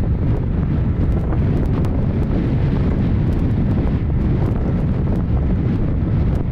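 Strong wind buffeting the microphone in a steady rumble, over the rush of waves breaking along the bow of a sailing ship under way in rough water.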